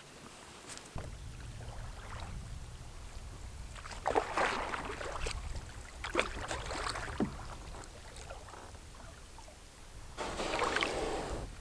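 Water splashing in separate strokes a couple of seconds apart, like a canoe paddle dipping and pulling through the water, over a steady low rumble.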